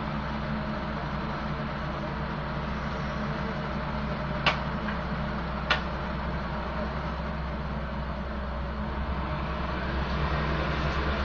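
Diesel engine of road-works machinery running steadily at a low, even beat, with two sharp knocks a little over a second apart near the middle.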